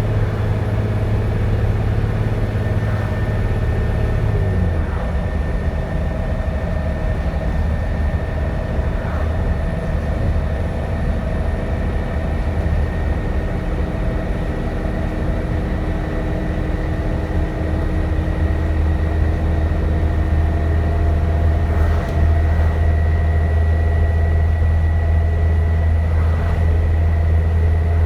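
Dennis Trident 2 double-decker bus engine running under way, with a thin, steady turbocharger whistle held above the low engine drone. The engine note drops suddenly about four seconds in, then grows stronger again towards the end while the whistle edges slowly higher.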